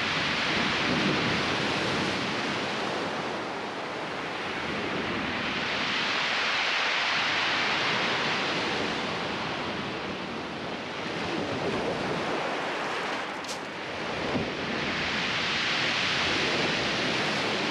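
Sea waves breaking and washing up the beach, the surf hiss swelling and fading three times. A single sharp click comes late on.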